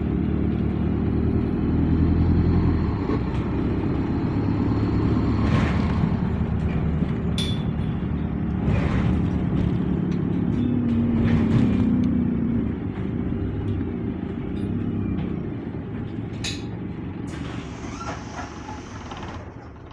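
Double-decker bus SLN 37504's diesel engine running under way, heard from the upper deck, with scattered rattles and knocks from the body. The sound sinks in the last few seconds, and a hiss comes near the end.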